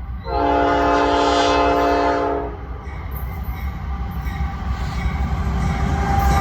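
Locomotive air horn sounding one chord for about two seconds, over the low rumble of a train that grows louder near the end as it approaches.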